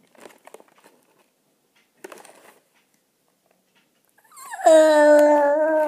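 A boy's long wail, sliding down in pitch and then held steady for about a second and a half near the end. Before it, faint rustling of cardboard packaging being handled.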